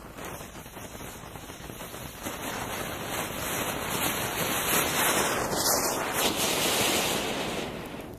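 Anar flower-pot fountain fireworks burning, a steady spraying hiss flecked with crackles that swells through the middle and dies down near the end.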